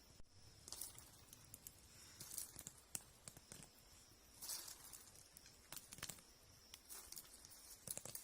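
Faint, scattered rustles and light crackling clicks of hands working dry plant material, several short bursts a second or so apart.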